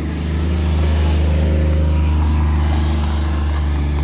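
Engine of a side-by-side utility vehicle passing close by. It is loudest about a second in, then slowly fades as the vehicle drives on ahead.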